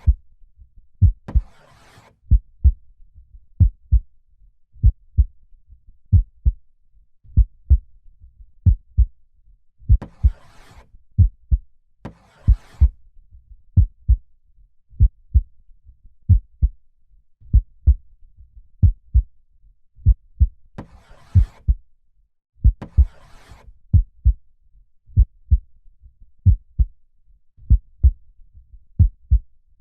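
A heartbeat beating slowly and steadily, each beat a deep lub-dub double thump a little over a second apart. Three times, about ten seconds apart, a slow breath in and out sounds over it.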